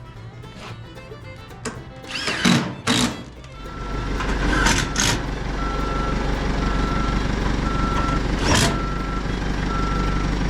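A heavy machine's engine starts running low, with its backup alarm beeping steadily about once a second while it reverses. Before that come two loud clanks.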